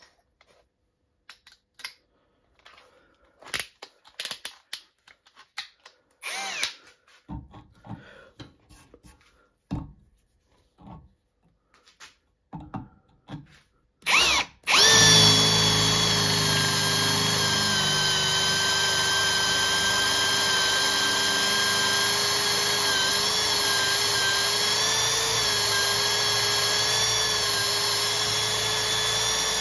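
Clicks and knocks of handling for about the first half while the 8 mm drill bit is fitted. Then a Parkside Performance PABSP 20-Li C2 brushless cordless drill gives a brief burst, stops, and starts again, running steadily in second gear as it drills an 8 mm hole in metal.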